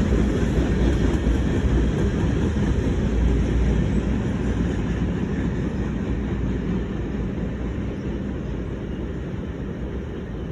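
CN freight train rolling past on the rails, a steady low rumble that slowly fades as the train moves away.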